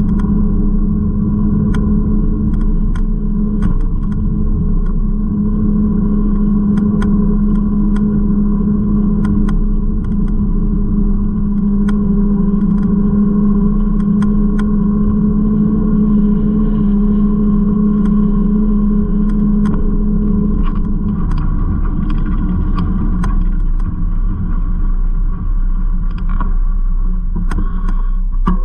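Steady rolling rumble and hum of a bicycle ride on city pavement, with frequent small clicks and rattles throughout; the hum shifts about two-thirds of the way in.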